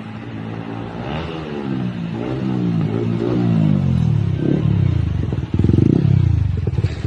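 Yamaha R15 V4's single-cylinder engine through an aftermarket R9 exhaust, revved again and again with the pitch rising and falling. It gives a loud, rough blast about five and a half seconds in, then drops back to an even pulsing beat near the end.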